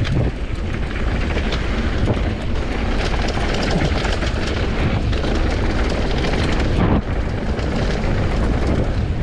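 Wind rumbling on the camera microphone and tyres running over dirt and rock on a Commencal Supreme DH downhill mountain bike, with a steady patter of rattling clicks from the bike as it descends.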